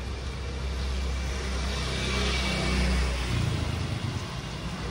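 Motor scooter passing close on a wet street: a low engine hum and a hiss of tyres on wet pavement that swell to a peak about three seconds in, the engine note dropping as it goes by.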